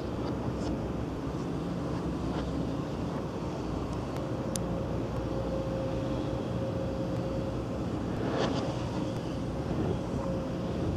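Steady low rumble of an engine running at a distance, with a faint steady hum over it, a few light clicks, and a brief hiss about eight seconds in.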